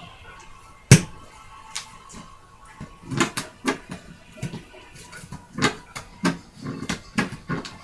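Cardboard board-game box being handled and opened, with scissors to hand: one sharp knock about a second in, then a run of irregular short clicks, taps and scrapes.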